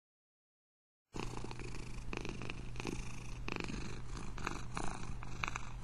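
A senior domestic cat purring steadily, cutting in abruptly about a second in after dead silence.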